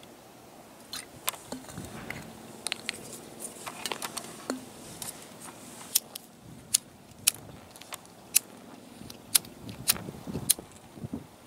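A hand-held lighter is struck again and again, making sharp clicks every half second to a second, to try to ignite a puddle of Seafoam engine treatment on concrete. Earlier there are softer, irregular clicks and handling noise.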